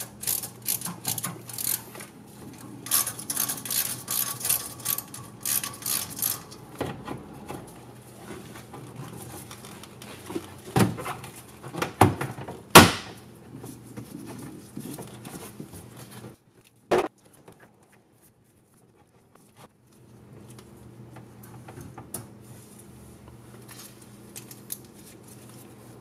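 Hands-on tool and handling noise at a turbo intercooler hose: a screwdriver working a worm-drive hose clamp with rapid small clicks and rattles, a few sharp knocks just before the middle, then lighter fiddling as a PVC pressure tester is pushed onto the hose and clamped. A faint steady low hum runs underneath, and the sound drops out briefly just after the middle.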